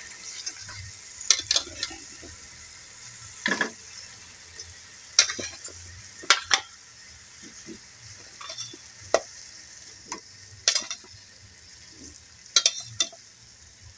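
Potato wedges sizzling steadily in a little hot oil in a non-stick frying pan. About ten sharp clicks and clatters, some followed by brief flares of sizzling, come as metal tongs set more pieces into the pan.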